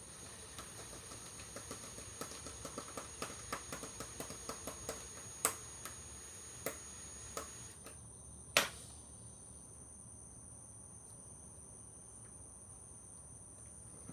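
Cordless drill/driver backing a facemask screw out of a plastic football helmet: a run of quick clicks for about five seconds, then a few louder knocks, the sharpest about eight and a half seconds in.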